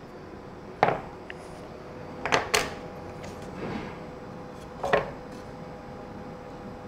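A few sharp knocks and taps of wooden pieces and tape rolls being handled on a workbench: one about a second in, two close together around two and a half seconds, and one near five seconds, with a soft rustle between them. A faint steady hum runs underneath.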